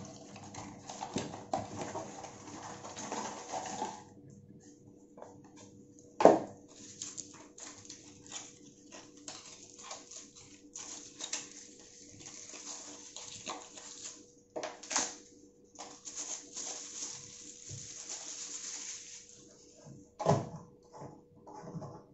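Cardboard retail box and its insert being opened and handled: rustling paper and scraping cardboard with many small clicks, and a sharp knock about six seconds in and another near the end.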